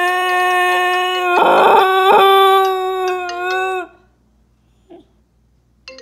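Husky howling: one long, steady howl that fades out about four seconds in. A phone ringtone's electronic notes start near the end.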